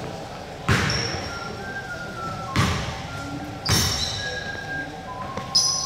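Indoor basketball play: four dull thuds of a basketball hitting the hardwood floor a second or two apart, with short, high sneaker squeaks in between.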